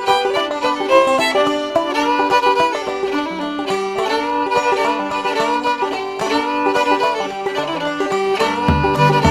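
Bluegrass instrumental music: a fiddle carrying the melody over banjo picking, with a bass coming in on a steady pulse near the end.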